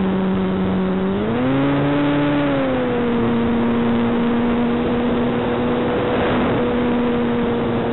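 Electric motor and propeller of a ParkZone Sukhoi SU-29MM RC plane droning steadily, heard from a camera on board. The pitch rises about a second in as the throttle is opened, then eases down a little and holds.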